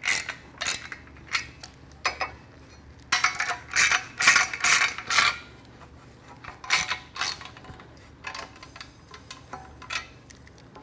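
Hand ratchet clicking in short, irregular runs as the bolts holding a transmission's parking-brake shoe assembly are run down by hand, with light metal clinks of socket and parts between the runs.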